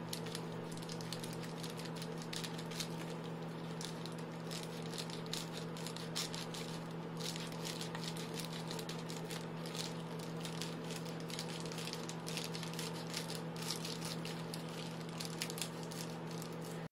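Scissors cutting through Reflectix foil-faced bubble insulation: a run of irregular crinkling snips and clicks, over a steady low hum.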